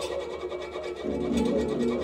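Cello bowed in sustained, wavering notes, with plucked bass koto strings alongside. About a second in, a louder, lower note comes in and holds.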